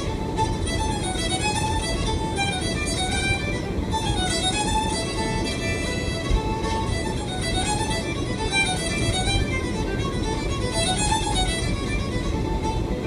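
A lively Cape Breton fiddle tune playing on the car stereo, a quick, unbroken run of fiddle notes over a steady low road rumble.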